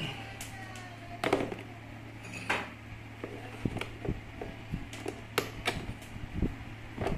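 Scattered light knocks and taps of objects being handled, the loudest about a second in and again near two and a half seconds, over a steady low hum.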